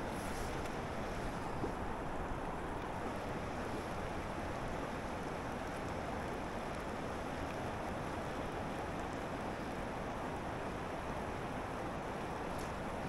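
Steady rush of river water flowing over a wide riffle, with a little wind on the microphone.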